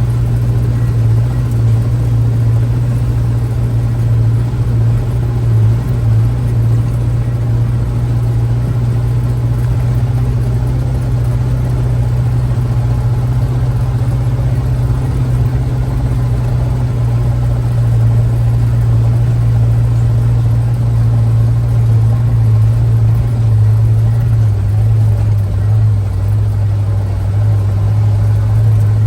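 Logging truck engine running steadily with a constant low hum and no revving.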